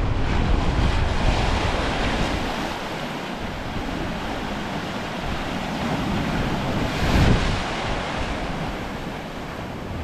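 Ocean waves breaking and washing around granite boulders at the shore, a continuous rushing surf, with wind rumbling on the microphone. One wave breaks louder about seven seconds in.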